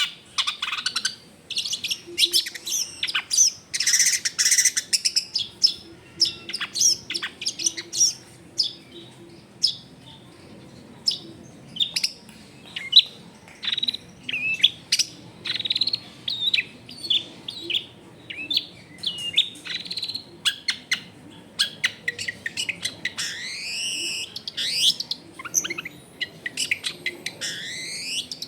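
Long-tailed shrike (cendet) singing a fast, varied song of short sharp notes and harsh chatters, with repeated sweeping glides near the end. The song is full of mimicked phrases ('full isian').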